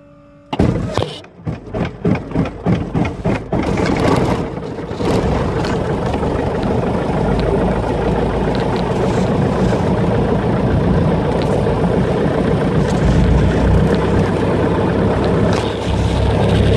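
Light aircraft piston engine being cranked by its starter, with a few uneven chugs about three a second, catching about four seconds in and settling into a steady idle with the propeller turning.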